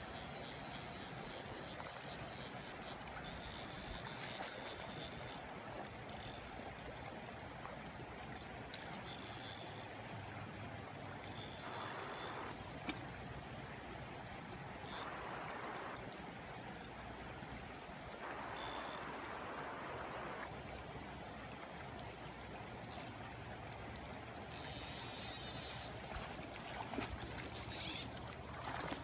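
Steady rush of a flowing stream, with a few brief louder noises along the way.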